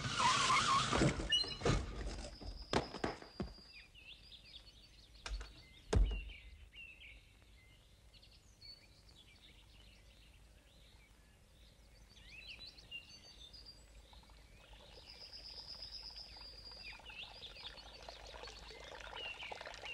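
Birds chirping and singing throughout. A loud rush of noise opens it, followed by about five sharp knocks over the first six seconds, the loudest around six seconds in.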